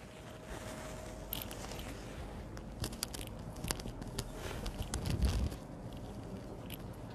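Cloth rustling and crackling against a clip-on lapel microphone as the wearer handles her dress and scarf, with scattered small clicks and a low bump about five seconds in.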